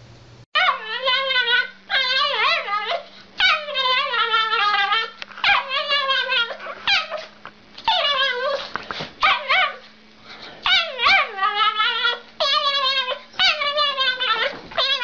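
Small dog giving a long run of drawn-out, high-pitched cries, each about half a second to a second and a half long, with a pitch that wavers up and down and short gaps between them. The cries start about half a second in.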